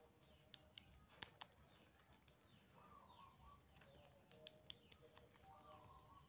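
Metal nail nippers snipping a thick toenail: a series of sharp, short clicks, often two in quick succession, with quiet between the cuts.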